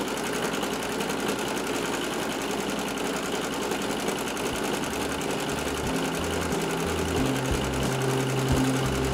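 Home sewing machine running steadily at speed for free-motion embroidery, its needle stitching rapidly through a baseball cap and stabilizer. Low steady tones that change pitch in steps join in about halfway.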